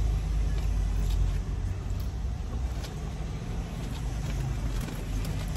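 Low steady rumble of a car heard from inside the cabin, with a few faint clicks.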